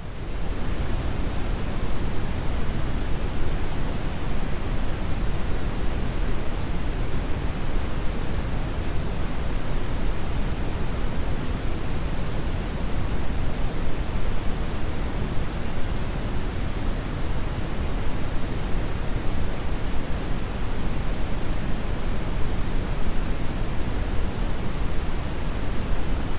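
Brown noise: a steady, even rumbling hiss, strongest in the low end and growing softer toward the highs.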